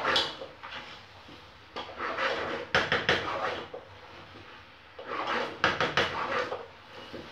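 A wooden spoon stirring diced meat and onions in a metal cooking pot, scraping and knocking against the pot in two bouts of clatter, about two and five seconds in.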